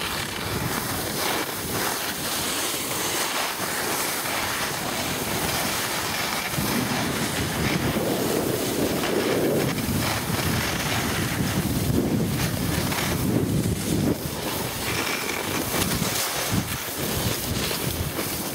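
Wind rushing over the microphone of a camera carried by a moving skier, with skis hissing over packed snow. The rush grows louder through the middle and eases toward the end.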